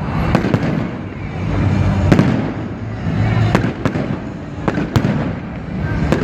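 Fireworks display: sharp bangs at uneven intervals, the loudest about two seconds in, over a continuous low rumble of echoing bursts.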